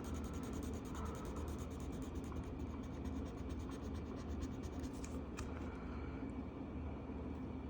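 Marker being scribbled across a paper colouring page in quick back-and-forth strokes, which stop about five and a half seconds in, over a steady low hum.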